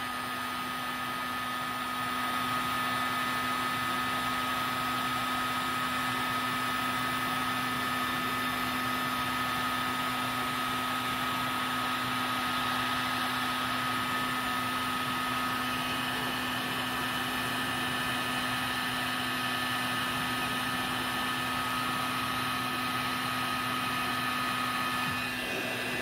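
Electric heat gun running steadily on its high heat setting, a constant whooshing hum with a faint steady whine, blowing hot air onto a heat-shrink solder-seal butt connector to shrink the sleeve and melt its built-in solder. It shuts off just before the end.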